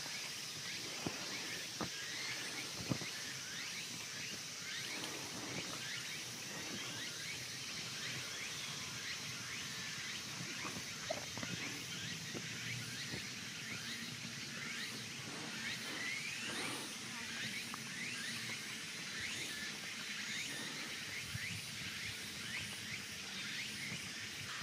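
Outdoor ambience: a steady high-pitched insect drone with many short falling chirps over it, and a few light knocks in the first few seconds.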